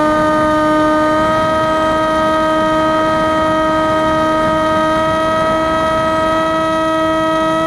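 Brushless electric motor and 6-inch propeller of an FPV flying wing running at steady cruise power, a constant whine whose pitch creeps slowly upward, with airflow rush underneath.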